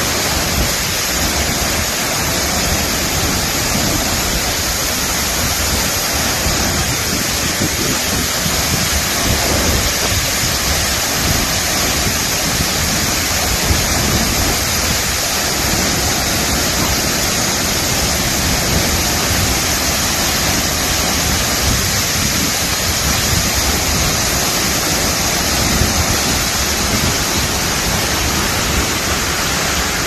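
Helmcken Falls, a tall waterfall partly encased in ice, pouring onto its ice cone: a loud, steady rush of falling water.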